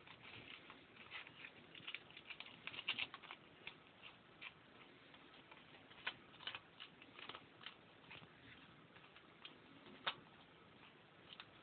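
Red iguana biting and tearing at a bunch of leafy greens: faint crackling and clicking of leaves torn and crunched. The clicks come thick and fast for the first three and a half seconds, then scattered, with one sharper snap about ten seconds in.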